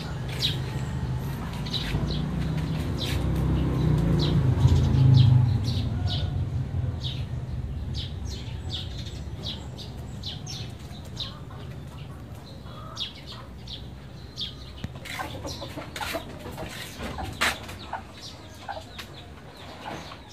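Birds chirping again and again in the background, short high calls scattered throughout, over a low rumble that swells during the first five seconds and then fades away.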